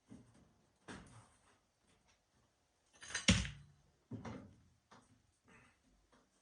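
A few separate clunks and scrapes of tools and metal parts on the furnace, with the loudest knock about halfway through, as a part held on with silicone is worked at.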